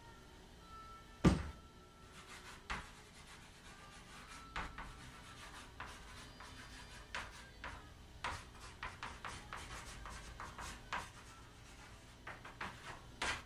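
Chalk writing on a wall-mounted chalkboard: a run of short scratches and taps as the letters go on. A sharp knock about a second in is the loudest sound.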